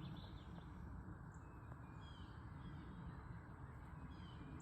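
Faint outdoor background: a steady low rumble with a few short, high, falling calls, a couple about two seconds in and another near the end.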